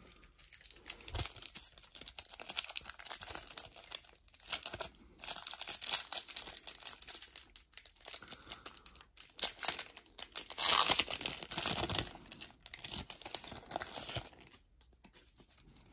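Foil wrapper of a 1991 Pro Set golf-card pack crinkling and tearing as it is pulled open by hand, in irregular crackles, loudest about eleven seconds in.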